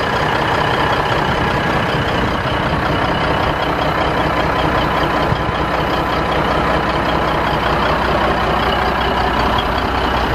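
Caterpillar 3406 14.6-litre inline-six diesel of a 1983 Ford LTL9000 semi truck idling steadily.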